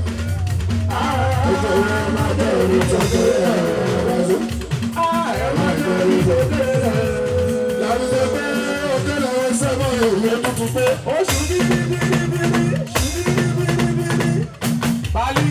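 Live Fuji band music: drums and percussion keep a steady beat under a melody line with a singing voice.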